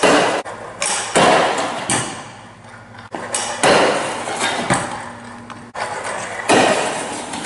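Stunt scooter doing boardslides on a low metal rail: several sharp clacks and bangs as the deck hops onto the rail and the wheels land back on the concrete, with the scrape of the deck sliding along the rail and wheels rolling between them.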